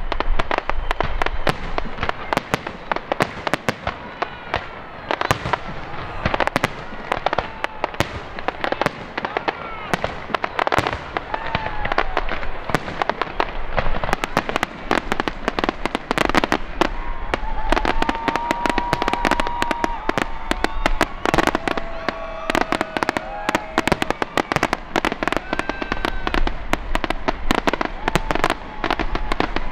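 Fireworks display: a dense, continuous barrage of aerial shell bursts and crackling, many sharp reports a second.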